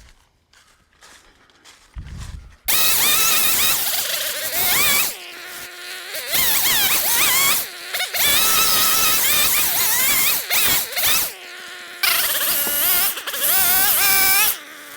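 Power saw cutting tree limbs, starting about three seconds in, its motor pitch wavering up and down under load, with a few brief drops.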